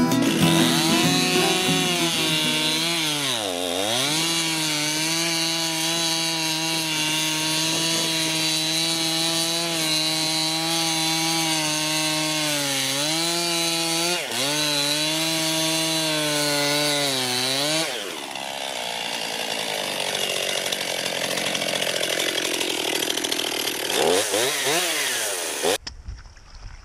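Stihl MS 261 two-stroke chainsaw running at high revs as its bar cuts down through thick lake ice, the pitch dipping briefly a few times. About two-thirds of the way through the steady engine tone turns rougher and noisier, and it cuts off near the end.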